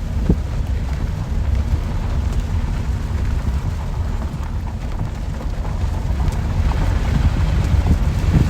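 Steady rain with a deep low rumble under it and a few sharper drop hits.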